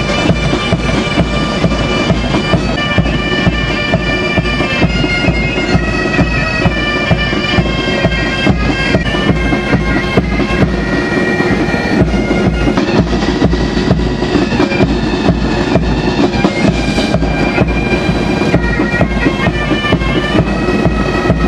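Military pipe band playing a march for a guard of honour: bagpipes carrying a melody over their steady drone, with drums beating time.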